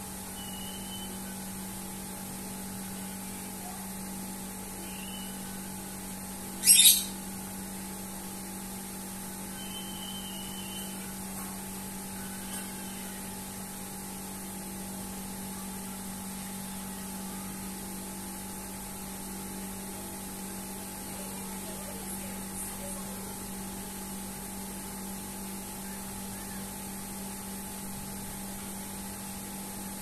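Steady low electrical hum, with a single short, loud, shrill call from a lovebird about seven seconds in. A few faint, brief chirps come here and there.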